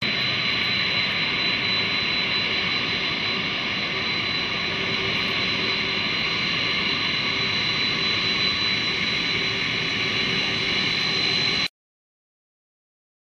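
Boeing YAL-1 (modified 747-400F) turbofan jet engines running steadily, a high-pitched whine over a broad rush, cutting off suddenly near the end.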